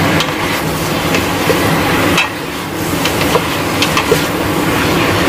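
Stingray pieces sizzling in hot oil in a pot while a metal spoon stirs them, clinking against the pot now and then.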